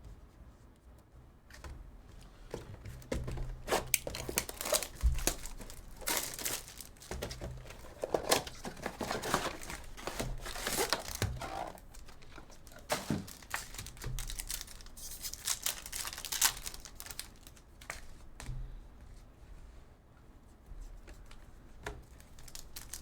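Foil trading-card pack wrappers being torn open and crinkled by hand, in irregular crackling bursts with short lulls.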